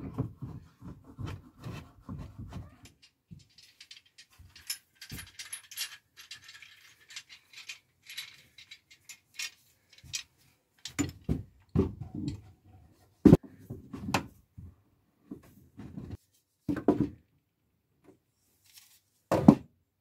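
Handling noises from assembling a wooden beehive super: wooden boards, clamps and a strap being shifted and knocked, with a rustle in the first half and one sharp click about 13 seconds in.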